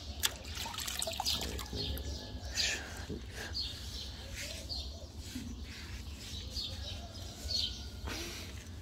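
Water dripping and a wet loofah being rubbed down a horse's lower leg, sponging water on to cool the leg after riding, with small birds chirping now and then.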